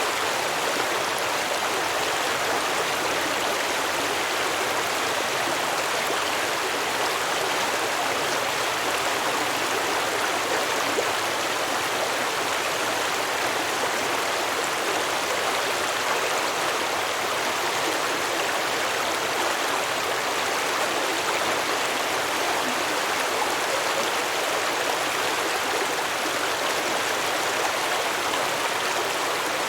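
Stream water flowing and babbling over rocks, a steady rushing sound that does not change.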